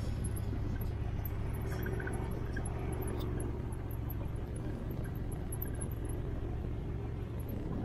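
Off-road vehicle engine running steadily, a low even rumble with no revving.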